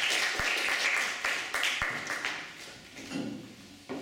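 Audience applauding with many hands clapping, dying away about two and a half seconds in; a soft knock near the end.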